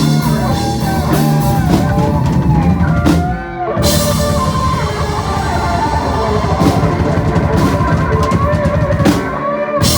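Rock band playing an electric guitar solo over a drum kit, the lead line full of bent notes. About three seconds in the band drops out briefly, then comes back in with a cymbal crash.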